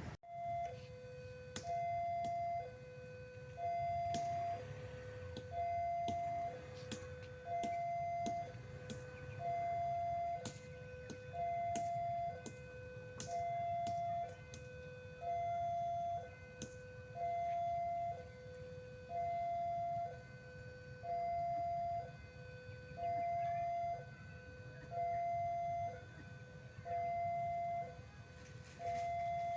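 Railway level-crossing warning alarm sounding a repeating two-tone high-low chime, one pair about every two seconds, over a low rumble.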